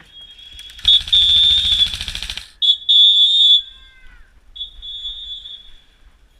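Airsoft bomb prop's alarm going off as its countdown runs out, signalling detonation. It sounds as a high steady shrill tone in two loud long blasts, the first with a rasping buzz under it, then a fainter third blast.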